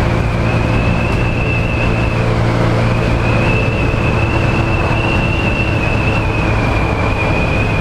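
Italika D125 LT 125 cc scooter running steadily at road speed, its engine hum mixed with rushing wind on the handlebar-mounted microphone. A thin high whine rides on top, wavering slightly and dipping briefly about two and a half seconds in.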